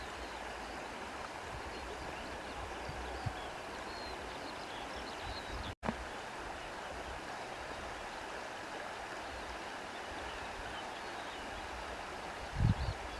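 Steady rushing of a flowing stream, with faint short high chirps over it. The sound cuts out for an instant about six seconds in, and a brief low thump comes near the end.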